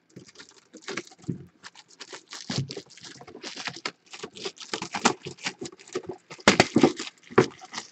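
Clear plastic shrink wrap being crinkled and peeled off a cardboard box, a dense run of irregular crackles and rustles, loudest near the end.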